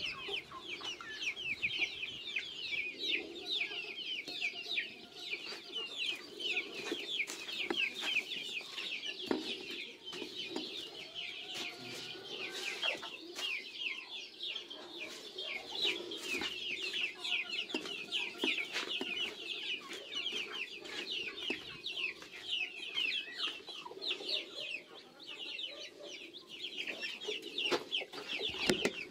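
A flock of chickens clucking, with a constant rapid high-pitched chirping over the clucking.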